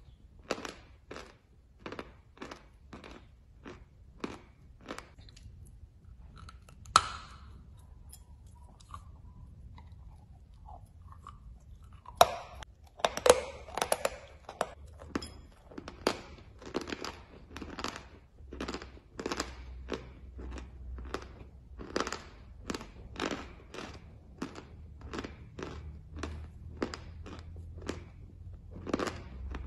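Chalk tiles being crunched and chewed close to the microphone, about two sharp crunches a second. After a quieter pause, a loud bite snaps off a fresh piece about twelve seconds in, and the steady crunchy chewing resumes.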